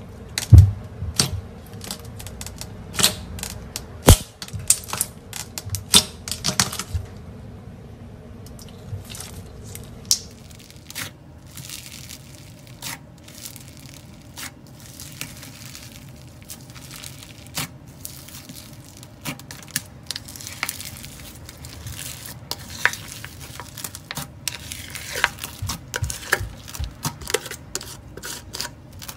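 Hands squishing slime: sharp sticky pops and clicks as a clear glitter slime is pressed and pulled off the table, then, from about ten seconds in, the dense crackling crunch of floam slime, packed with foam beads, being pressed and kneaded.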